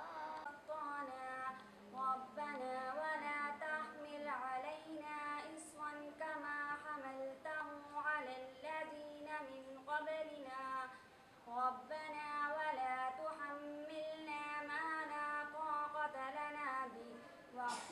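A girl singing a naat solo in Urdu, one voice with no instruments, in a slow melodic line of held, wavering notes, pausing briefly for breath about two-thirds of the way through.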